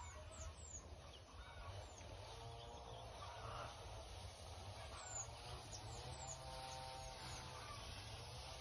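Faint farmland ambience: distant domestic fowl give two drawn-out calls, about two seconds in and again about six seconds in, while small birds chirp high and short over a steady low rumble.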